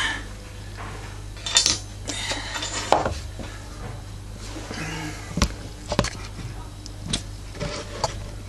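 Small objects being handled on a hard tabletop: a plastic kit box shifted and a fire steel set down, giving a handful of scattered sharp clicks and knocks.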